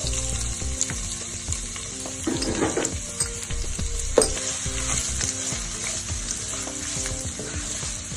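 Chopped onions sizzling in hot oil in a frying pan, with a steady hiss. A utensil now and then clicks and scrapes against the pan as they are stirred.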